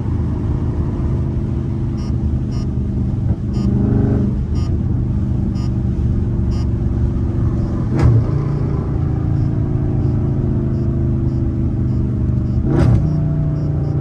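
Catless Dodge Charger Scat Pack's 392 HEMI V8 exhaust, heard from inside the cabin with the windows cracked, running loud as the car slows from about 70 to 45 mph. Two short sharp pops come from the exhaust, about halfway through and near the end.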